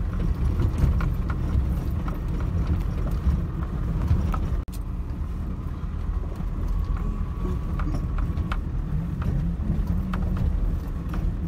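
Inside a pickup truck's cab on a rough dirt track: a steady low rumble of engine and tyres, with frequent small knocks and rattles as the truck jolts over stones and ruts. The sound breaks off for an instant a little under halfway through.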